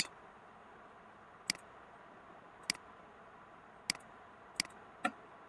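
A computer mouse clicking five times, short sharp single clicks spaced about a second apart, over a faint steady hiss.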